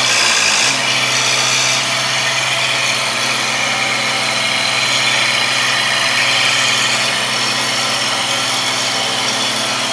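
Engine of a tree-service work machine running steadily, its pitch wavering briefly about half a second in.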